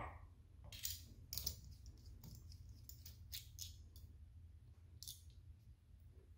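Faint, scattered metallic clicks and light taps of a Rockwell 6S stainless steel safety razor being put together by hand, with base plate, blade and top cap fitted and the handle turned on.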